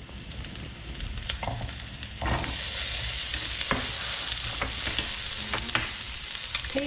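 Diced bell peppers and peas hitting hot chilli oil in a frying pan, the sizzle jumping up loud about two seconds in and running on steadily. Light clicks of wooden chopsticks against the pan as the vegetables are stirred.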